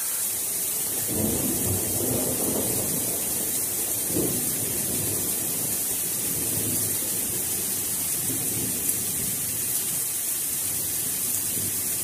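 Steady rain hiss, with a low rumble during the first few seconds.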